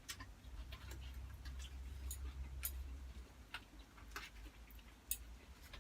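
Cutlery clicking lightly and irregularly against a plate or tray during a meal, about nine separate clicks, over a steady low hum.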